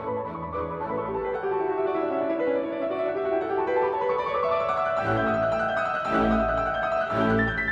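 Instrumental background music led by piano: runs of notes climbing steadily higher, with heavy low chords struck three times near the end.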